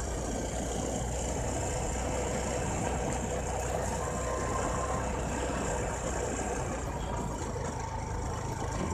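Bajaj Discover 150F motorcycle's single-cylinder four-stroke engine running steadily on the move, with wind rushing over the microphone.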